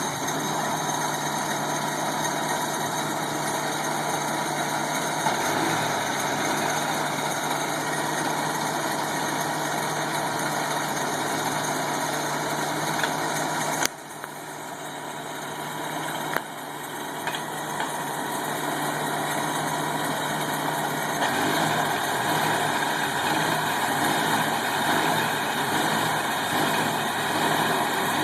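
Engine of an antique 1940s Longyear core drill running steadily. About halfway through its sound drops off suddenly and then builds back up over several seconds, settling into a different, rougher note, with a few sharp clicks along the way.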